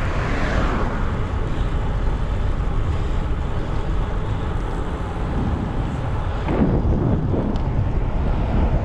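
Wind rushing over the microphone of a camera on a moving road bicycle, with a steady low rumble. A car passes in the opposite lane right at the start, and a second swell of passing-traffic noise comes about six and a half seconds in.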